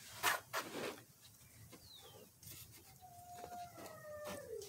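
Two short rustles near the start as the plant's stems are handled. Then, about three seconds in, a rooster crows once for about a second and a half, a steady note that falls at the end.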